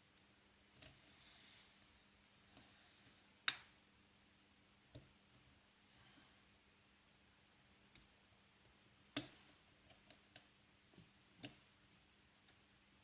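Sparse, faint metallic clicks and ticks of a hook pick and tension wrench working the pins of a Yale 6-pin euro cylinder during single pin picking, a sharper click twice standing out.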